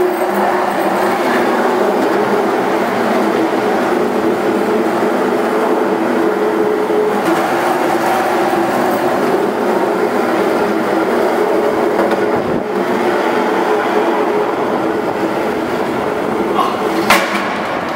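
Skateboard wheels rolling steadily over a concrete parking-garage floor, a continuous rumble. There is one sharp click near the end.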